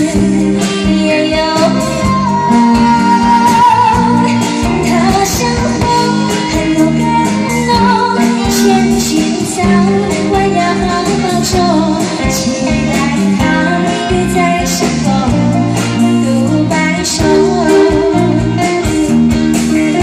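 Live band playing a song: a woman's amplified lead vocal over electric guitars, bass guitar and keyboard, at a steady loud level.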